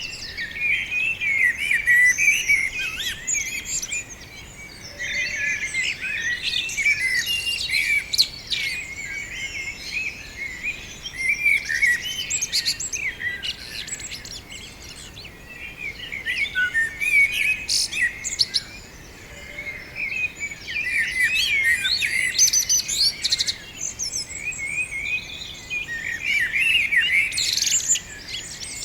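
Several songbirds singing and chirping together in a tree, quick overlapping high warbles and twitters that come in bouts of a few seconds with brief lulls between.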